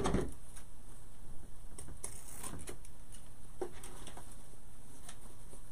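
Quiet crafting sounds: a knock near the start as scissors are picked up off the table, then soft rustling of ribbon and a few light clicks and snips as the scissors trim the bow's ribbon tails.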